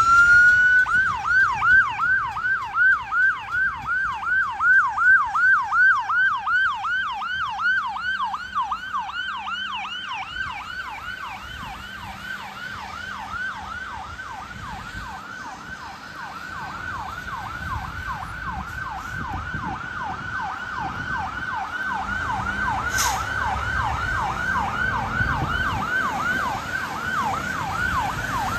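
A fire engine's siren on a fast yelp: a rapid rising-and-falling wail repeating about three times a second. It is loudest in the first few seconds, fades somewhat midway, then grows again.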